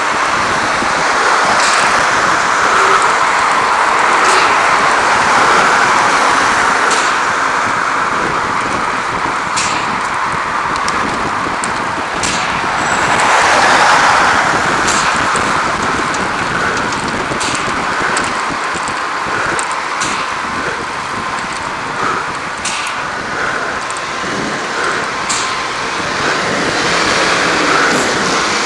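Steady rush of road traffic and wind, heard from a moving bicycle, swelling briefly about halfway through, with scattered short sharp clicks.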